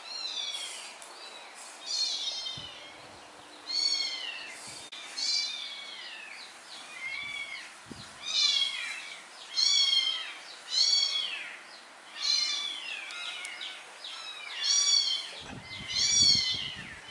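Wet kitten mewing over and over in high-pitched cries, about one a second, each rising then falling in pitch, as it is rubbed dry in a towel. A low rumbling noise comes in near the end.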